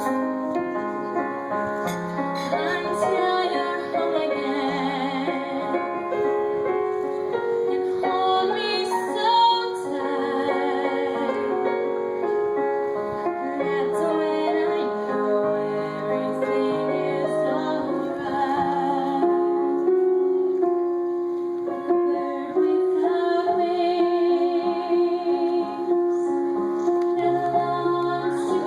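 A woman singing a slow ballad over piano accompaniment, her held notes wavering with vibrato.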